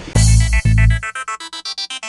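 Electronic music: two deep bass hits, then a fast, evenly repeating run of synthesizer notes at about seven a second.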